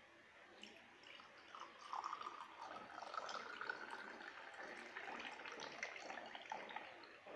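Lemon juice poured from a height in a thin, steady stream into a glass tumbler, splashing as it fills; the pitch of the filling rises slowly as the glass fills up. The pour starts about a second in and tails off near the end.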